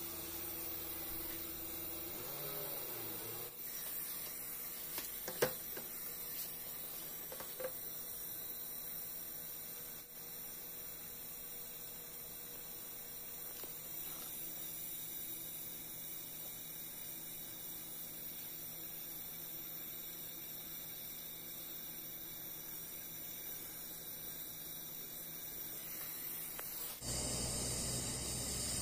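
Gas brazing torch flame hissing steadily while brazing a fridge compressor's copper lines, with two short clicks about five and seven seconds in; the hiss grows louder near the end.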